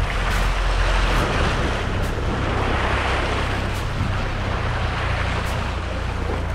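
Small sea waves washing and splashing over a rocky shore ledge, a steady rushing wash over a constant low rumble.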